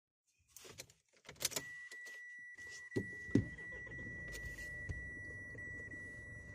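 Keys rattling and clicking in the ignition of a Mitsubishi L200, then a steady high warning beep. About three seconds in, the truck's diesel engine starts with a couple of sharp knocks and settles into a steady idle.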